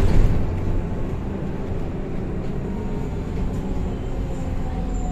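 Ride noise inside a moving BKM 321 trolleybus: a steady rumble of tyres and running gear, loudest at the very start. A faint electric whine slowly falls in pitch over the last couple of seconds.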